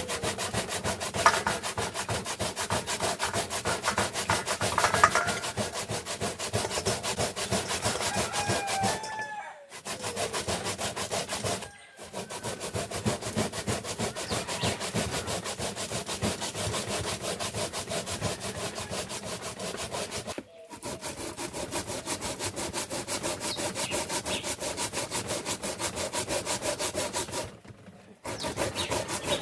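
Sweet potato and yam being rubbed by hand against a grater: rapid, rhythmic rasping strokes that stop briefly four times.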